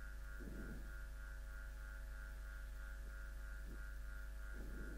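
Steady low electrical mains hum with a faint, evenly pulsing higher whine over it. There are two short faint sounds, about half a second in and near the end.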